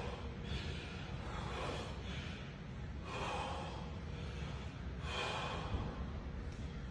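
A bodybuilder breathing hard through his mouth while posing, with forceful breaths about every two seconds over a steady low hum.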